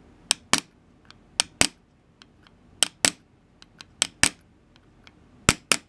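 Hammer striking a steel pin punch, sharp metal-on-metal taps in about five quick pairs, driving out the peened-over pin that holds the wooden handle on a socket awl; the pin is moving.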